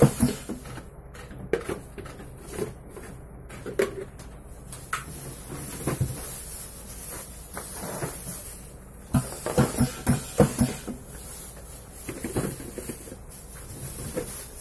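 Hard plastic safety helmets knocking and clattering as they are handled and set on a helmet printing machine's fixture, in irregular short knocks that come thickest about two-thirds through, over a faint steady hiss.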